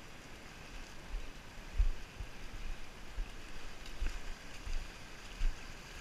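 Wind buffeting the microphone in irregular low thumps over a steady hiss of moving seawater.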